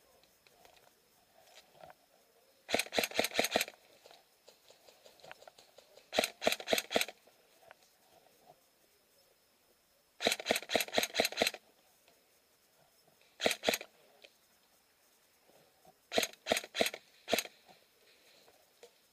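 Airsoft gun firing in five short strings of sharp shots, about seven a second, with pauses of a few seconds between strings; the shortest string is just two shots.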